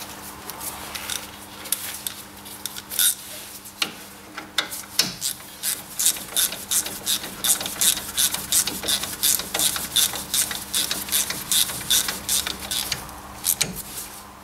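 Socket ratchet clicking in quick repeated strokes as the brake caliper bolts are wound back in, starting about four seconds in and stopping near the end, with a few knocks of the tool against the caliper before it.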